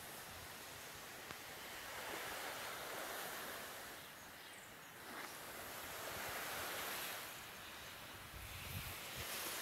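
Small waves washing onto a sandy beach, the surf noise swelling and ebbing twice, about four seconds apart. Low wind rumble on the microphone near the end.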